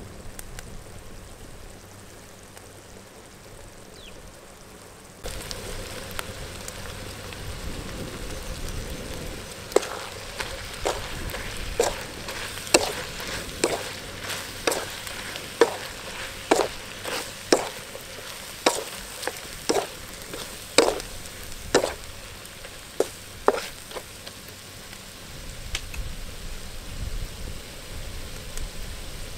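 Chopped frog meat with chilies and garlic sizzling in a wok; the sizzle gets louder about five seconds in. Through the middle, a spatula stirs the food, knocking and scraping against the wok about once a second.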